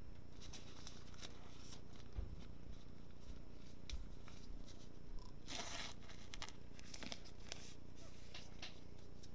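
Faint handling noise of a trading card in gloved hands: scattered light clicks and rustles, with one brief scraping rustle about five and a half seconds in.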